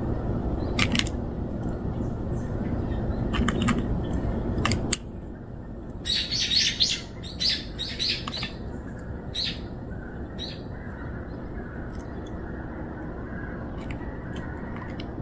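Small birds chirping, a quick run of high calls loudest about six to eight seconds in, then sparser chirps. For the first five seconds a steady low outdoor rumble with a few sharp clicks runs underneath; it drops away suddenly about five seconds in.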